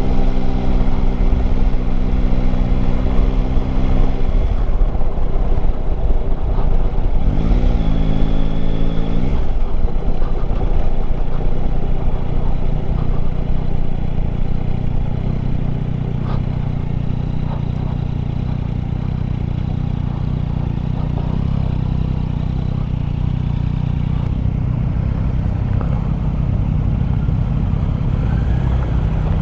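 Yamaha Tracer 9 GT's three-cylinder engine running on the move, with wind and road noise, and a brief rise and fall in engine pitch about eight seconds in. The sound eases off in the second half as the bike slows to pull in.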